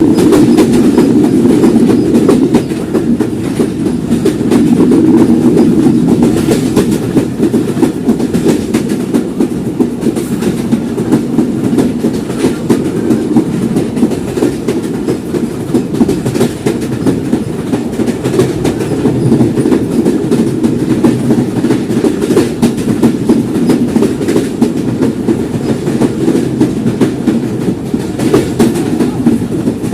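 Rupsha Express passenger train running at speed: a steady loud rumble of wheels on the rails with many sharp clicks and clacks from the track.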